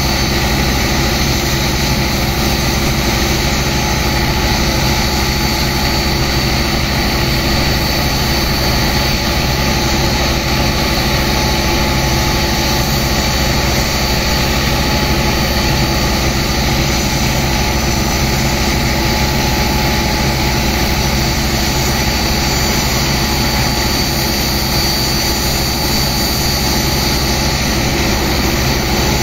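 Sand-pumping engine and pump running at a constant speed, a loud unchanging drone, mixed with the rush of high-pressure water jets blasting sand into slurry.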